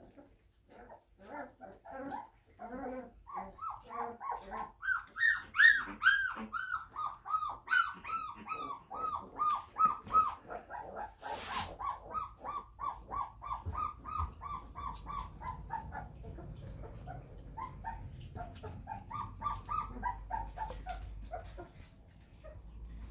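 Young Labrador puppies crying in a rapid run of short, high, rising-and-falling whines and yelps, a few a second. The cries are loudest about five seconds in and tail off near the end.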